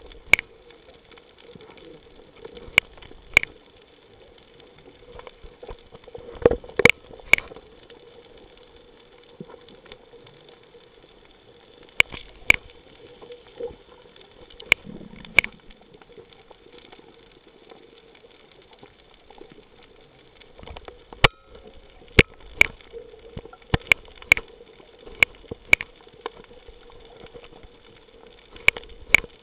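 Underwater sound picked up by a camera in the sea: a low watery hiss with a faint steady hum, broken by sharp, scattered clicks every second or few.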